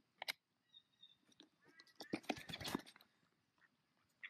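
Mallard hen's bill clicking on a plastic tub lid, then, about two seconds in, a second-long burst of scrabbling and wing flapping as she hops off the lid.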